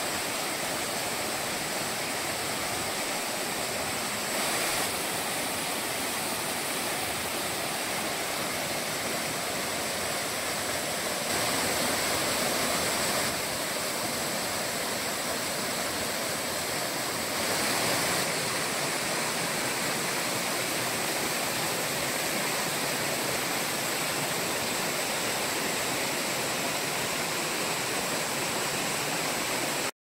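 Steady rushing hiss of a narrow waterfall falling into a plunge pool, with slight jumps in loudness a few times.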